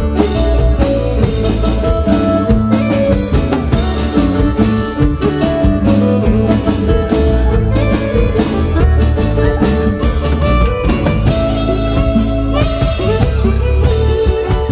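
Live band playing an instrumental passage of a chilena: electronic keyboards play the melody over a steady drum-kit beat, with no singing.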